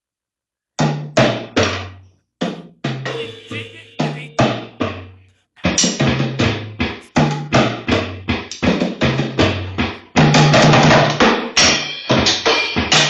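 A drum kit sound preset, which its player calls a busted-up, strange-sounding kit, played as a series of hits. Low toms step down in pitch across the fills. The hits grow denser after a short pause about five seconds in, build to a fast roll about ten seconds in, and end with cymbals ringing.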